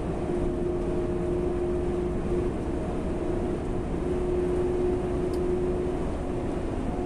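Inside a truck's cab at motorway cruising speed: steady low engine and road rumble with a steady humming whine over it.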